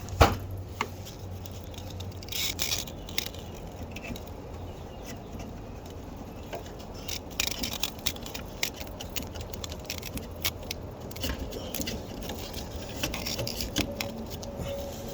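Handling noise of a portable table saw and its parts: scattered clicks, light knocks and scrapes, with one sharp knock at the very start.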